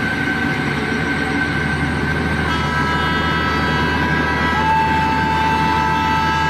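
Train running with a steady low rumble and several high, held tones over it. Further tones join about two and a half and about four and a half seconds in.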